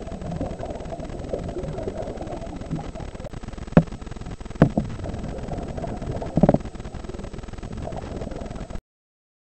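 Muffled underwater noise picked up through a waterproof action-camera housing: a steady low rumble with three sharp clicks or knocks, the last a short buzzy rattle. The sound stops abruptly near the end.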